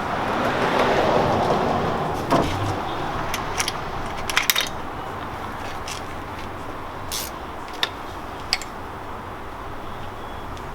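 Scattered metallic clinks and knocks from hand tools during work on the engine, a handful spread over several seconds. Underneath, in the first two seconds, a rush of traffic noise swells and fades.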